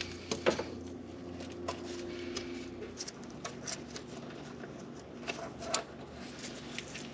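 Scattered light clicks and rustles of small metal parts and tools being handled, over a steady low hum that drops somewhat about three seconds in.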